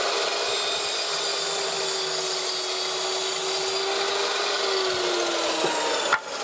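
Electric sliding compound mitre saw running at full speed with a steady whine, its blade lowered into a weathered reclaimed plank. The pitch sags slightly about four and a half seconds in as the blade takes the load of the cut, and the sound cuts off suddenly near the end.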